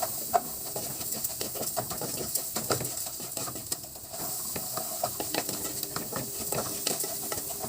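Butter melting with dry rice in a pot on the stove, sizzling with a steady hiss and frequent small crackles.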